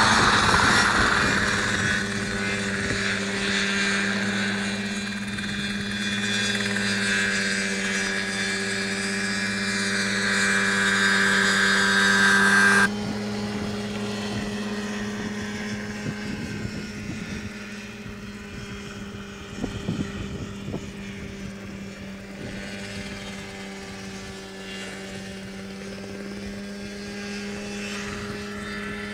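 Small homebuilt open-frame single-seat helicopter running in a hover, its piston engine and two-blade rotor making a steady drone. The level drops suddenly about thirteen seconds in and the drone carries on more quietly.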